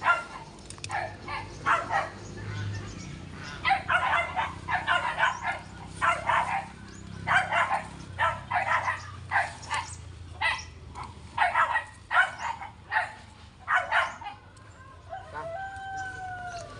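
A dog barking over and over in short sharp barks, roughly one to two a second, then a single drawn-out whine near the end.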